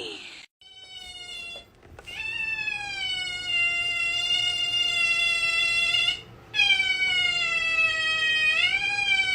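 Cat yowling in long drawn-out meows. A short faint call about a second in is followed by two long calls of about four seconds each, and the second rises in pitch near its end.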